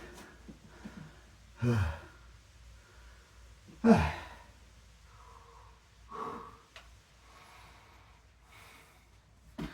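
A man breathing hard from exertion: about five forceful exhaled breaths with a voiced, grunting edge, the loudest about four seconds in.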